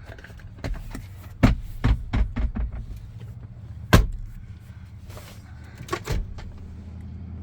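Knocks and clicks of handling inside a pickup truck's cab, with one sharp, loud knock about four seconds in, over a low steady hum.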